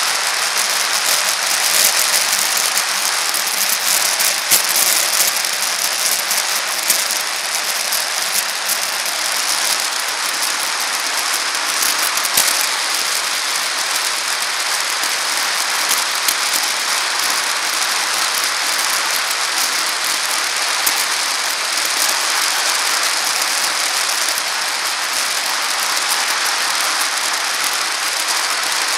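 Steady hiss of a bicycle rolling along a paved path, heard through a camera mounted on the bike, with scattered light rattles and clicks from the bike and mount.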